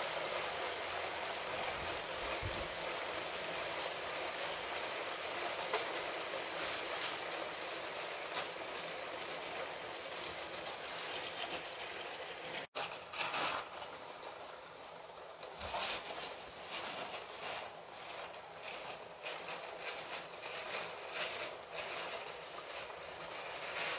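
Motorised Lego 60197 passenger train with a long string of wagons running on plastic track: a steady whirring rattle of motors and wheels. The sound breaks off for an instant about halfway, then goes on with more irregular clicking of wheels over the track.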